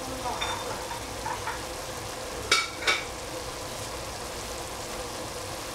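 Cabbage, bean sprouts and capsicum frying in a stainless steel pot: a steady sizzle, with two sharp clicks about two and a half and three seconds in.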